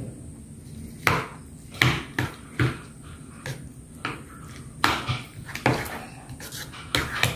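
Spoon stirring the leaves into a bowl of cucur batter, clacking and scraping against the sides of the bowl in a dozen or so irregular knocks.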